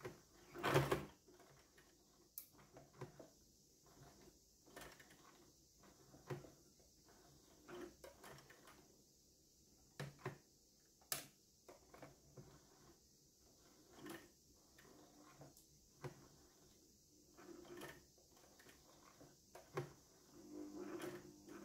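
Household sewing machine turned slowly by its handwheel to stitch through stiff leather, making a separate quiet click or clunk of the needle and feed every second or two, with a louder one near the start. It is hand-cranked one stitch at a time because the leather is too stiff to sew at speed.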